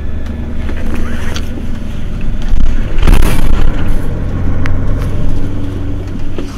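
Mercedes-Benz Citaro Facelift city bus running, its engine making a steady low drone, with a few sharp clicks and a short hissing burst about halfway through.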